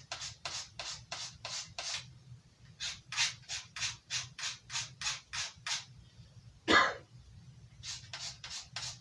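Knife blade stroked along a handheld abrasive sharpener in quick, even scrapes, about three a second, in sets of about ten strokes per side with a short pause between sets. One louder swish comes about two-thirds of the way through, over a low steady hum.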